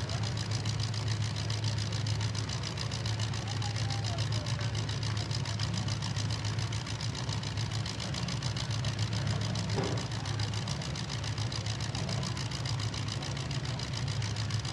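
Demolition derby cars' engines idling together, a steady low rumble with no revving.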